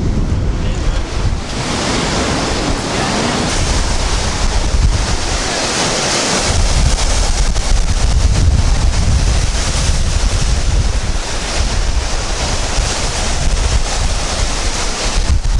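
Baltic Sea surf breaking and washing in foam around wooden groynes, a steady crashing hiss that fills in about a second and a half in. Strong wind buffets the microphone throughout with a low rumble.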